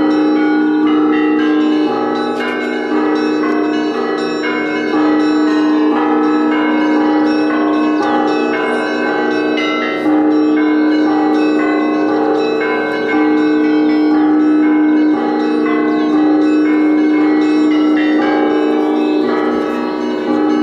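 Russian Orthodox church bells ringing: many smaller bells struck in quick, uneven patterns over a deeper bell that is struck every few seconds, its hum ringing on between strokes.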